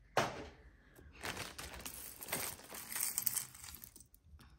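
A clear plastic bag crinkling and metal costume jewelry clinking as a hand rummages through a pile of it, with a sharp rustle just after the start and denser crackling and clicks in the middle that die away near the end.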